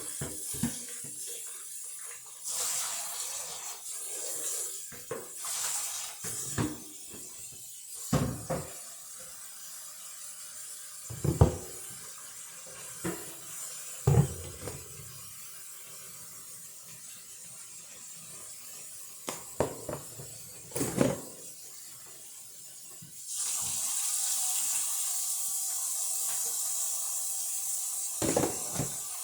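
Kitchen sink water being changed out: scattered knocks and clunks in the basin, then the tap running steadily for about the last six seconds as the sink refills.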